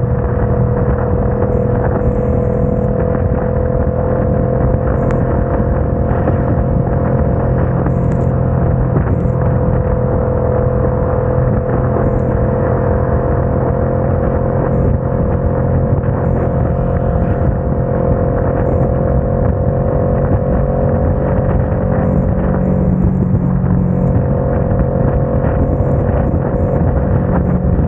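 Motorcycle engine running steadily at highway cruising speed, a constant hum over wind and the hiss of tyres on a wet road.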